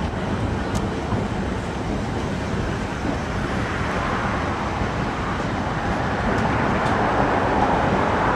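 Narrow-gauge train running along the track, heard from an open-air passenger car: a steady rumble of wheels and cars in motion.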